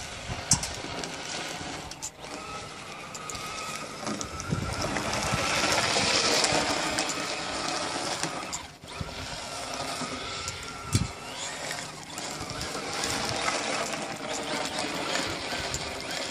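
Traxxas rally RC car's electric motor and drivetrain whining as it accelerates, turns and slides through snow, rising and falling with the throttle and loudest about six seconds in. A sharp click comes about half a second in and a low thump about eleven seconds in.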